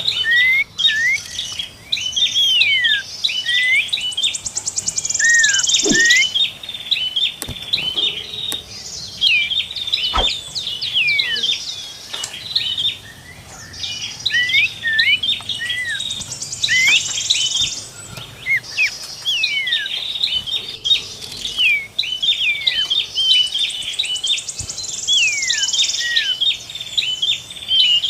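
Several small songbirds calling and singing together in a busy chorus: quick, high whistled notes that slide up and down, broken every few seconds by buzzy, rattling trills.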